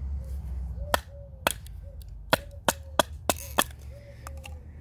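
A barked wooden baton striking the spine of a knife laid across an oak billet, driving the blade down to split wood off the side (batoning). About seven sharp knocks come in quick succession, starting about a second in.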